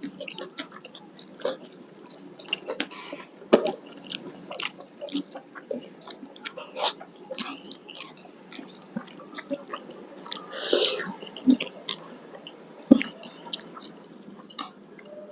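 Close-miked chewing and biting on a meal of curry and rice, with many short wet mouth clicks and smacks and one louder crunchy burst about ten seconds in.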